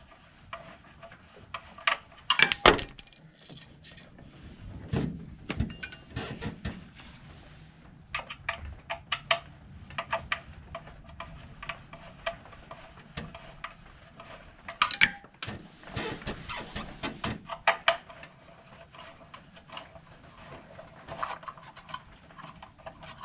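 Hand tools and small metal parts clinking and knocking at irregular intervals, with a few louder clatters about two and a half seconds in and again around the middle.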